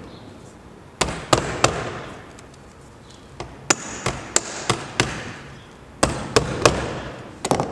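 Sharp metallic taps and clicks on a sheet-metal roofing panel as its ribs are cut and folded down by hand. They come in quick groups: three about a second in, a run of about six around the middle, three more after six seconds, and two near the end, each with a short metallic ring.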